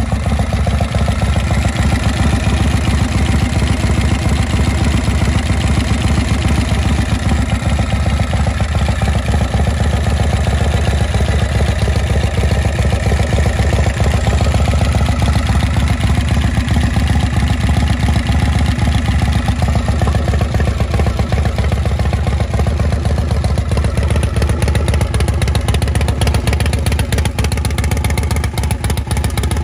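Harley-Davidson Shovelhead air-cooled V-twin idling steadily through slash-cut chrome exhaust pipes.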